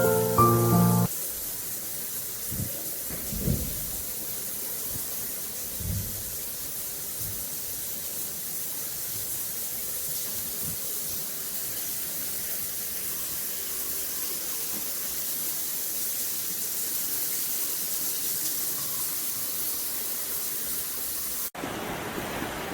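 Steady hiss of rushing water, with a few soft low thumps in the first several seconds. A short stretch of background music ends about a second in.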